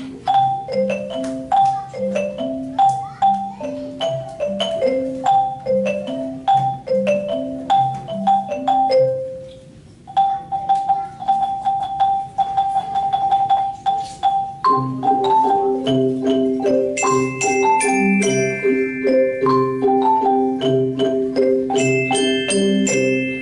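An ensemble of Orff-style wooden xylophones and other mallet instruments plays a piece: a repeating run of struck notes over a low repeating bass figure. Near ten seconds it drops to one long held note. From about fifteen seconds a fuller section comes in, with long low notes and, a little later, high bell-like notes.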